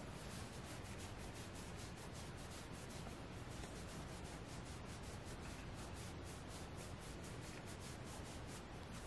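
Fingers scratching rapidly back and forth on the soft plush fabric of a Squishmallow stuffed toy, making a soft, even scratching hiss at about five strokes a second.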